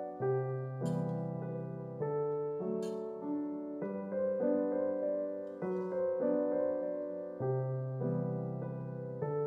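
Solo piano music: a slow melody over held bass notes.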